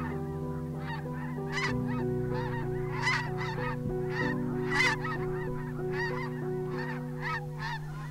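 A flock of snow geese calling in flight: many short, high yelping calls overlapping, several a second. A soft, low, sustained background music bed with slowly changing notes lies underneath.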